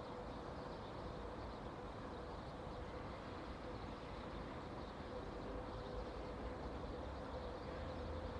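ČKD ChME3 diesel shunting locomotive running at a distance: a steady low rumble with a thin, steady whine, growing slightly louder toward the end as it draws nearer.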